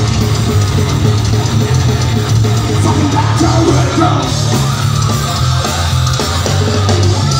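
Live heavy metal band playing loud: distorted electric guitars over a drum kit, dense and unbroken.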